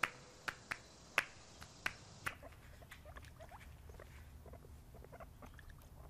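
A handful of sharp clicks in the first two seconds, then a guinea pig making many faint, short squeaks that glide up in pitch.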